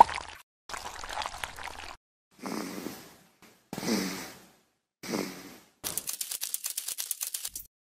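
Cartoon-style snoring sound effect, three breathy snores in a row, for a fish drawn asleep. Then a fast rattle of clicks lasts about two seconds, like crabs scuttling.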